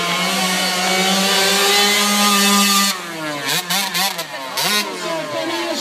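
Small motorcycle engine on a high wire, running at a steady, slowly rising pitch, then revved up and down in quick blips from about three seconds in.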